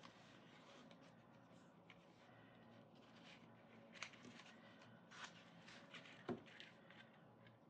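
Faint rustling and sliding of paper and cardstock as a card band is worked off a deck of cards, with a few light taps, the sharpest about four and six seconds in.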